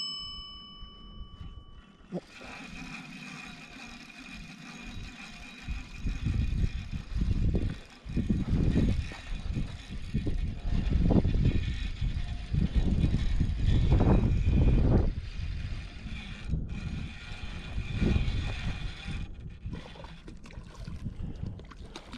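Spinning reel being cranked, a steady whir with a thin tone, while gusts of wind rumble on the microphone. A ringing chime fades out in the first two seconds.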